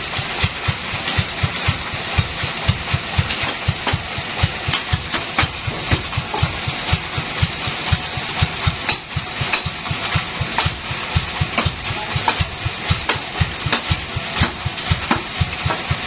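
Engine of a homemade sawmill bandsaw idling with a regular low beat, about four to five a second, while the saw is not cutting.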